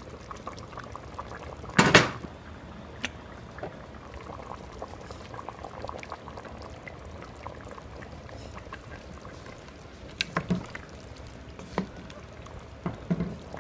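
Chicken stew simmering in a stainless steel pot, with a loud clatter about two seconds in as the pot's lid is handled. Near the end come a few knocks as a wooden spoon stirs the stew against the pot.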